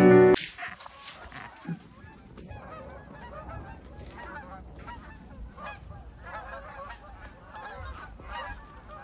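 A flock of geese honking as they fly overhead, many short overlapping calls that grow busier after the first few seconds. A piano tune cuts off at the very start.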